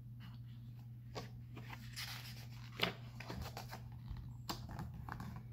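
Paperback picture book being opened: the cover and pages rustle and crackle under the hands, with a few light taps of fingers on paper, over a steady low hum.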